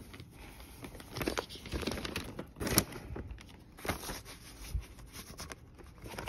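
Paper inner sleeve rustling and scraping as a vinyl LP is handled and slid into it, in irregular bursts, the loudest a little under three seconds in.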